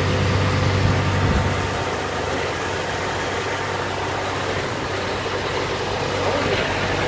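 Steady engine-like hum under a wash of noise at a petrol pump during refuelling. The low drone eases about a second and a half in.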